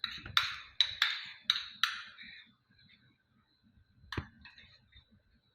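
A metal spoon tapping against a glass: about five quick ringing clinks in the first two seconds, then a single duller knock about four seconds in.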